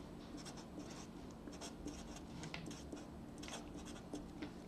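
Sharpie felt-tip marker writing a word on paper: a run of short, faint strokes of the tip scratching across the sheet.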